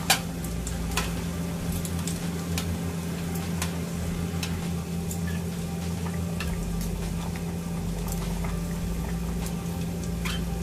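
Pasta water boiling in a large stainless-steel pot as metal tongs stir the pasta, with scattered light clicks of the tongs knocking against the pot, the sharpest right at the start; bacon sizzles in a frying pan alongside, over a steady low hum.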